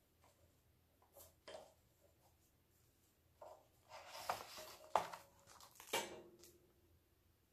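Handling noise from a hardcover picture book being held up and shifted, its paper pages rustling and scraping, with two light knocks near the end.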